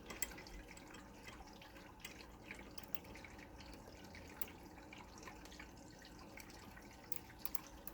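Faint, irregular clicking of a ratcheting combination wrench's mechanism as it is worked on a nut, with a few sharper clicks near the end.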